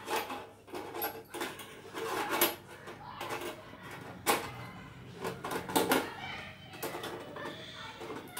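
A small key scraping and clicking in the lock of a toy cash-box piggy bank as it is worked to open the lid, with irregular light clicks and a couple of sharper knocks about halfway through.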